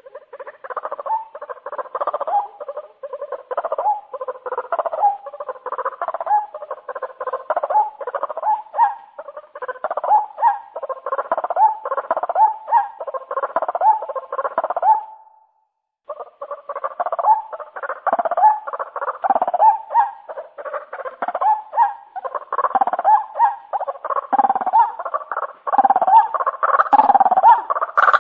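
White-breasted waterhen (ruak-ruak) calling in a fast, continuous run of repeated calls, several a second, broken by a short silence about halfway through; a lure-call recording of the kind played to draw the birds in at night.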